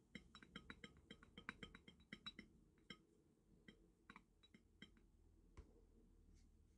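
Faint quick ticks and clicks of a water brush tapping and working paint in a plastic palette well, dense for about the first three seconds, then sparser.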